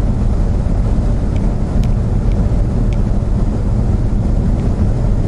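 Steady rumble of a car driving down a steep mountain grade: engine and tyre noise, with a few faint ticks.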